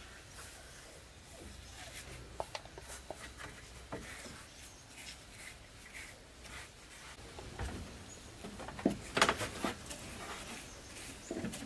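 Bristle paintbrush rubbing and scraping along wooden rails and legs as brown wood finish is brushed on, in short repeated strokes. There are a few sharper knocks a little past the middle.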